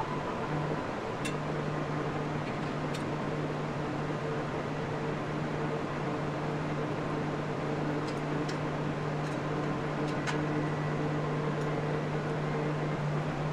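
Steady mechanical hum with a constant low drone, and a few faint clicks of metal being handled, about a second in, near three seconds and again around ten seconds.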